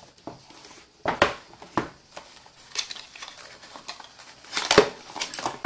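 Cardboard packaging being handled and a small white paperboard box opened by hand: irregular rustles, scrapes and light knocks, the loudest knock a little before the end.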